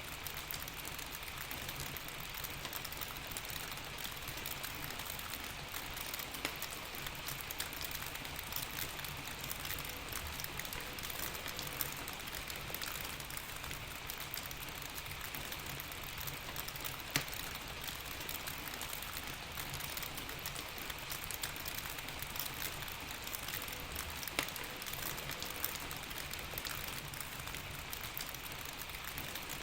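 Steady rain: an even hiss of falling rain with scattered sharp ticks and pops, a few of them louder than the rest.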